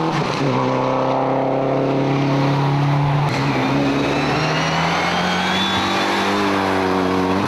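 Rally car engine running at high revs on a tarmac stage, holding steady notes that drop in pitch twice, once shortly after the start and again about three seconds in. A faint high whine rises through the middle.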